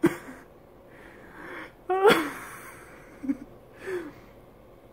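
A man's wordless vocal sounds: a sharp, breathy burst at the start and a short voiced cry falling in pitch about two seconds in, with a couple of small sounds after.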